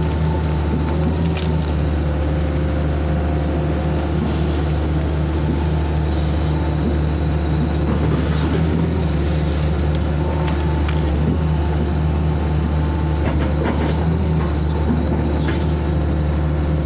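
Hitachi excavator's diesel engine running steadily at working revs, heard close from the machine, with a few short knocks.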